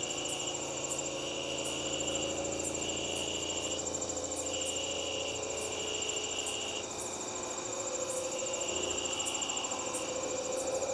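A chorus of crickets and other night insects calling: a steady high trill, with a lower trill that starts and stops every second or so.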